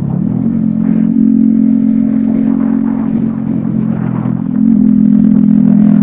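Yamaha XSR155's 155 cc single-cylinder four-stroke engine running through a DIY exhaust while riding. Its note climbs in pitch right at the start, holds steady, then climbs again and gets louder about four and a half seconds in, as the throttle is opened.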